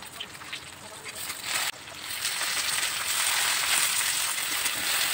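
Food sizzling in hot oil in a metal wok, stirred with a metal spatula that scrapes and taps the pan. About two seconds in, the sizzle becomes a louder, steady hiss as mushrooms and green capsicum are stir-fried.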